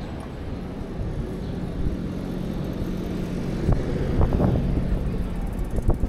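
City street traffic with a motor vehicle's engine running close by as a steady low hum. A few short knocks come about four seconds in.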